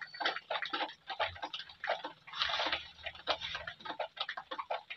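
Plastic bag rustling and crinkling as hands sort through mushrooms inside it: a dense run of small crackles, with a longer rustle about halfway through.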